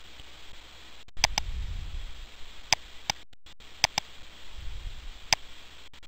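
Computer mouse button clicks: about seven sharp single clicks over a few seconds, some in quick pairs.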